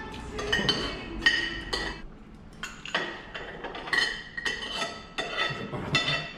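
Spoons and forks clinking against plates during a meal: many short, uneven clinks with a brief ring.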